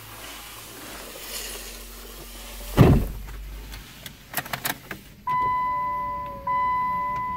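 A car door shuts with a heavy thump about three seconds in, followed by a few sharp clicks of keys. From about five seconds in, the car's warning chime sounds as a series of long, slowly fading tones, the signal that the key is in the ignition before starting.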